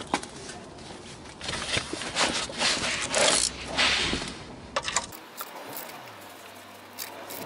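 Ratchet wrench clicking and tools scraping on metal while the oil sump drain plug is loosened, with a run of rapid clicks and scrapes in the first few seconds and quieter handling after about five seconds.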